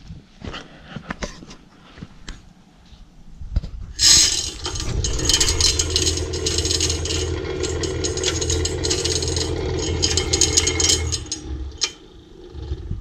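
12-volt broadcast game feeder's spinner motor kicks on about four seconds in on a timer test and runs steadily with a rattling clatter for about seven seconds, then stops. It is running well but throws almost nothing: the hopper is down to its last handfuls of corn.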